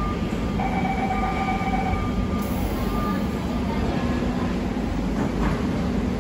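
Singapore MRT C651 train starting off from the platform: its GTO-VVVF traction motors whine in steady tones that jump in pitch in steps as it gathers speed, over the rumble of the train.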